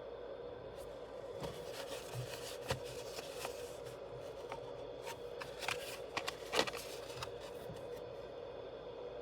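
Toy car packaging being handled and opened: rustling and scraping with several sharp clicks, the loudest about six and a half seconds in, over a steady hum.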